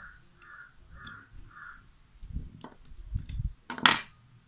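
A bird calls four times, harsh calls about two a second, stopping before halfway. Soft handling knocks follow, then the loudest sound, a sharp metal click as tweezers touch the cassette deck's tape mechanism.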